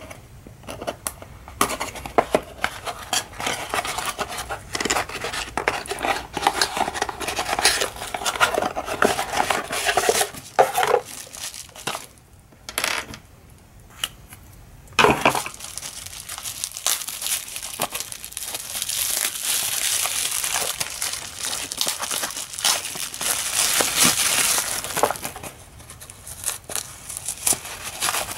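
A cardboard shipping box being opened with a hobby knife: the blade scraping through the packing tape and the flaps rustling, with small knocks against the desk. After a sharp click midway, plastic bubble wrap crinkles for several seconds as it is pulled off, then paper wrapping rustles.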